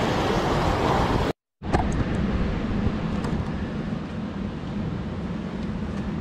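Waves surging and washing over coastal rocks, a steady rushing noise. It cuts out for a moment about a second and a half in, then comes back somewhat quieter.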